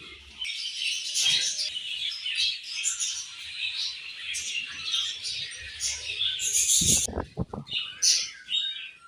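Flock of budgerigars chirping and chattering, many high chirps overlapping without a break. About seven seconds in there are a few short dull knocks.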